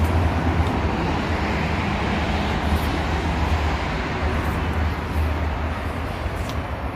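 Steady low rumble of outdoor background noise, like traffic or a running vehicle, with a few faint light clicks.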